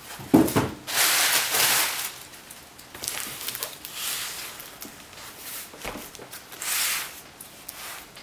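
A plastic-wrapped cardboard box being handled and turned over on a wooden table: crinkling rustles of the plastic wrap in several short bursts, with a thump about half a second in.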